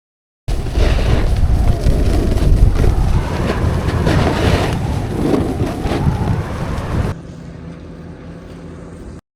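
Wind buffeting the microphone and the scrape and hiss of a snowboard sliding over snow. It cuts to a much quieter hiss about seven seconds in.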